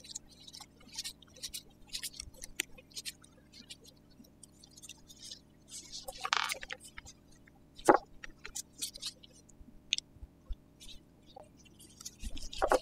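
Allen key working the hose bolt on a hydraulic disc brake caliper: irregular light metal clicks and scrapes, with a sharper knock about eight seconds in and a louder clatter near the end.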